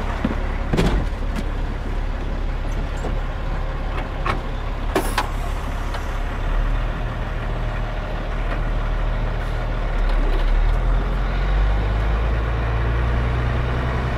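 Truck engine running steadily, with a few sharp knocks or rattles; the engine gets a little louder about two-thirds of the way through.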